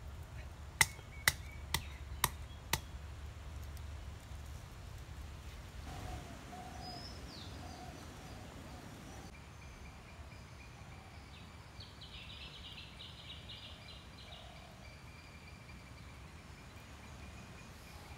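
Five sharp wooden knocks, about two a second, from a wooden pestle pounding in a small wooden mortar. After them, birds chirp faintly over a quiet outdoor background.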